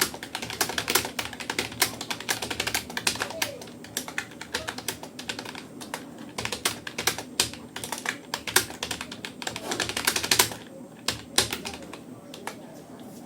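Fast touch typing on a Rapoo computer keyboard: a rapid, uneven stream of key clicks that thins out to a few strokes near the end.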